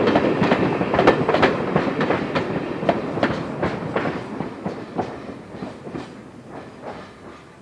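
Wheels of a departing train's passenger coaches clicking over rail joints, the clicks in uneven clusters over a steady rumble. It all fades steadily as the last coach passes and the train moves away.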